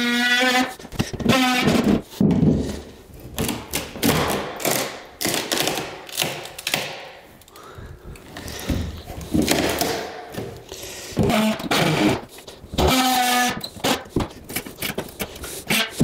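Cordless oscillating multi-tool buzzing in short runs as it cuts through the corners of a plywood subfloor. Between the runs come irregular cracks, knocks and thuds of the cut plywood being broken loose and pulled out.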